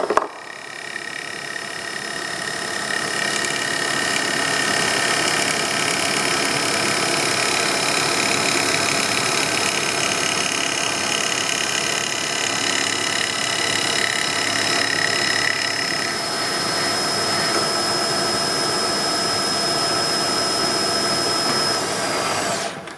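Milling machine spindle running a chamfer cutter through the edge of a white plastic tray: a steady high whine over cutting noise, which stops just before the end.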